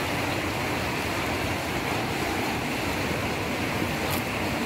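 Rain falling steadily on the house roof, a continuous even rushing hiss.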